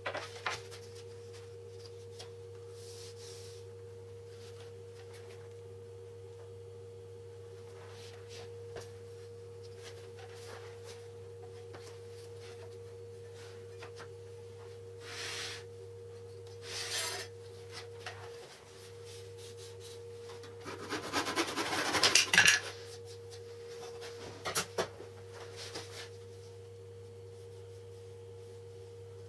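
Laminate flooring boards scraping and knocking as they are slid and handled on a workbench, with one loud rough scrape about three-quarters of the way through. A steady low hum runs underneath.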